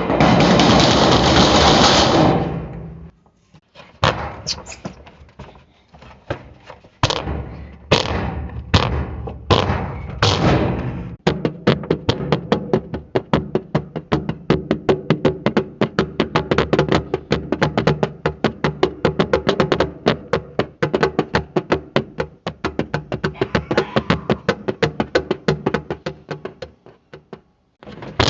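Loud explosion-like burst, then a barrage of sharp impact sound effects: a few spaced hits, then a long fast run of many hits a second that breaks off shortly before the end.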